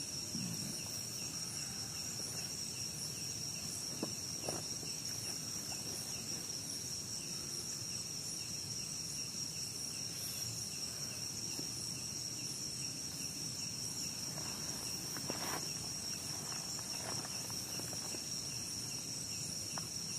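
Night insects, crickets, keeping up one steady high-pitched trill, with a few faint knocks or rustles around four seconds in and again past the middle.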